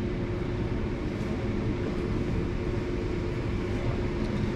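Steady hum and whoosh of a ventilation fan running, with a faint steady tone.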